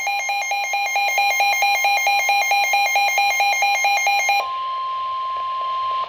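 Midland weather alert radio sounding its warning alarm: a rapid, shrill pulsing beep. About four and a half seconds in it changes to one steady tone near 1 kHz, the NOAA Weather Radio warning-alarm tone that comes just before a warning message is read.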